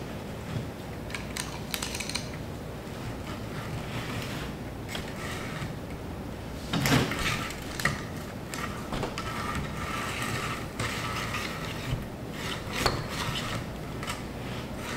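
Spline roller tool being rolled hard along the groove of a metal screen-door frame, pressing rubber spline and pet-resistant screen into the channel: scattered clicks and rattles, with two sharper knocks about seven seconds in and near the end.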